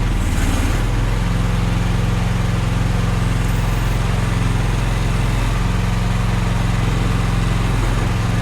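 Small engine of a Chinese mini excavator running steadily at a constant speed.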